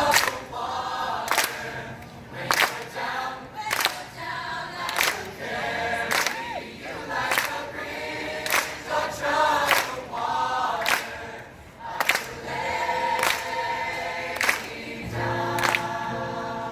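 Choir singing in harmony over a sharp, even beat that strikes about once every second and a quarter.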